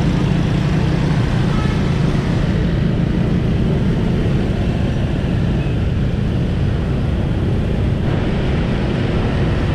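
Steady road noise heard from a moving motorbike in dense motorbike traffic: engines and tyres with a strong, constant low rumble.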